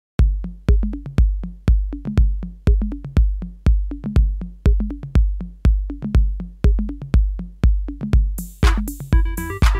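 Electronic dance music: a steady kick drum about twice a second under a bass line, joined about eight seconds in by hi-hats and higher synth notes.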